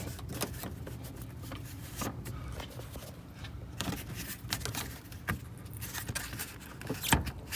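Scattered light clicks and knocks of hands handling a radiator hose and lines in an engine bay, over a steady low hum; the sharpest knock comes near the end.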